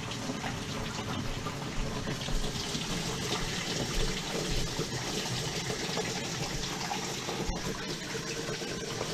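Water from a running kitchen sink rushing steadily down the drain stack.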